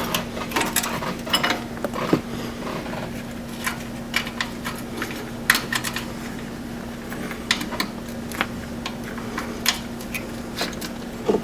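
Aftermarket EMP speed shifter on a Polaris RZR 900S being moved through its gates: irregular clicks and clacks of the lever and its linkage, over a steady low hum.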